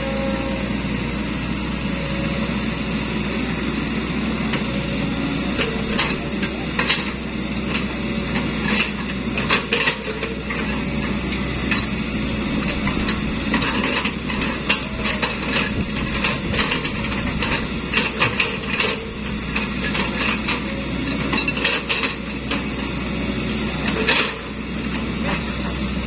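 Hitachi crawler excavator's engine running steadily as it digs, with irregular sharp clanks and knocks from the bucket and boom linkage working the soil. The knocks begin a few seconds in and come in clusters.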